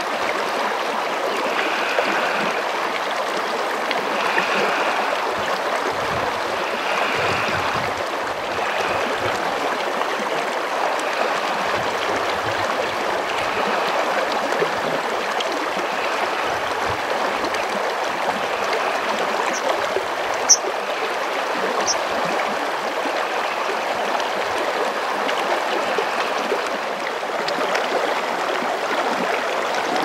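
A mountain stream running steadily, with a couple of brief high chirps about two-thirds of the way in.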